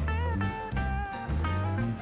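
Background music: a guitar over a steady, rhythmic bass line.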